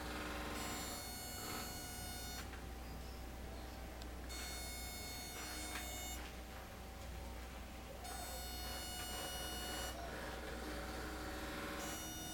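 Electrical buzzing from a plasma-tube therapy machine. A steady low hum runs under a high, buzzy pulsed tone that switches on and off every two seconds or so.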